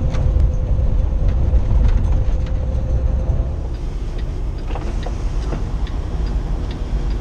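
Inside the cab of a 2015 Kenworth T680 semi truck on the move: a steady low drone of diesel engine and road noise. A few seconds in it drops slightly in level, with scattered light clicks.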